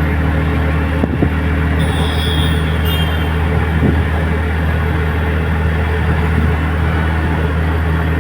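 Vehicle engine running at a steady speed, a constant low hum, with a brief high chirp about two seconds in.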